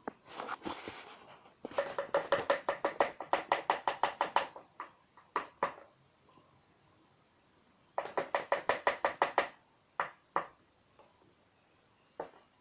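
Quick runs of sharp taps on a plastic container, about seven a second, in two bursts with a few single knocks between, after a short scraping rustle at the start.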